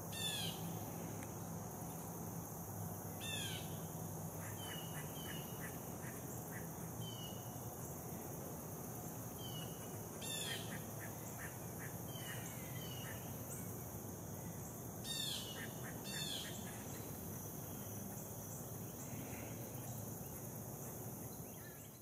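Black-bellied whistling ducks calling several times, each call a quick run of whistled notes falling in pitch, over a steady high-pitched insect drone.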